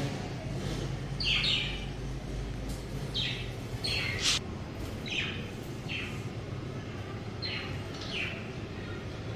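Budgerigars chirping: a string of short chirps, each sliding down in pitch, spread through the stretch over a low steady background rumble.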